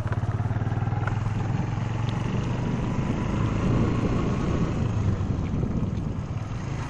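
Motorcycle engine running steadily at low speed, heard close up from the rider's seat, with an even low firing pulse.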